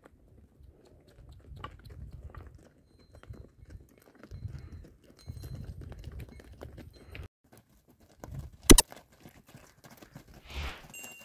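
Donkeys' hooves clopping and crunching irregularly on dry, stony ground as a small pack train walks by. One sharp, loud knock comes about three-quarters of the way in.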